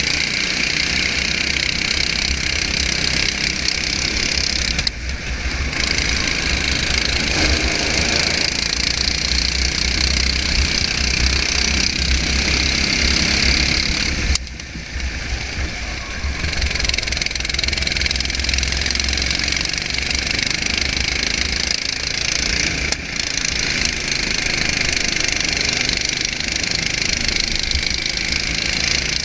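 Go-kart engine running at racing speed, heard from on board the kart together with a steady rush of wind and track noise. The level dips briefly twice, about five and fifteen seconds in.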